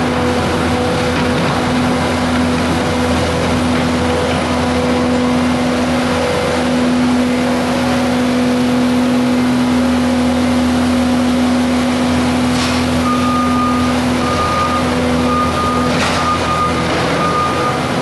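Skid steer loader's engine running steadily while it handles hay bundles, with a couple of short knocks. From about two-thirds of the way through, a backup alarm beeps about once a second.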